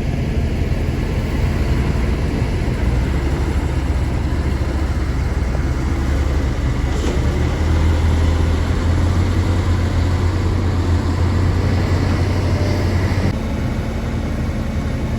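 Kobelco excavator's diesel engine running under load, a steady low drone that swells for several seconds in the middle and drops abruptly near the end.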